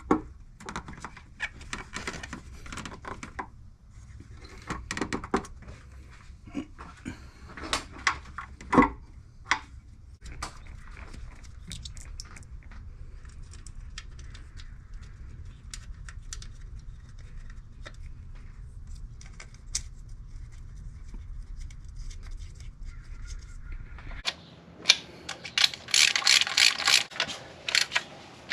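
Metal parts and hand tools clinking and clattering as a valve cover is fitted onto an engine's cylinder head, scattered clicks over a low hum. Near the end the hum stops and a dense run of rapid clicking and rattling follows.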